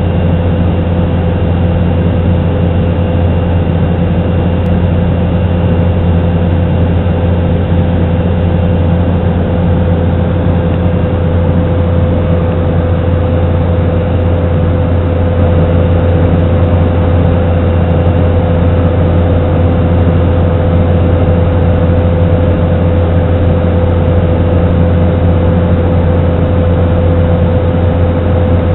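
Bush plane's engine and propeller running steadily in flight, heard from inside the cabin as a loud, unbroken drone with a deep hum and a steady higher tone over it.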